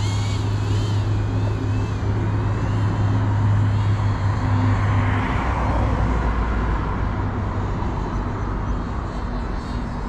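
GEPRC Cinelog 35 FPV cinewhoop's motors whining in flight, the pitch rising and falling as the throttle is worked, over a steady low hum that drops lower about halfway through.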